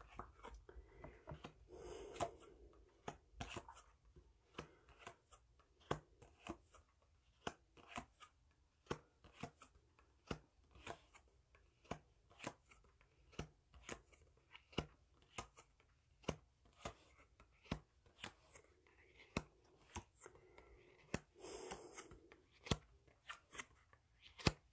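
Playing-style cards being handled over a tabletop: faint, sharp taps and snaps at uneven spacing, about one or two a second, with two short rustling passes, about two seconds in and again a few seconds before the end.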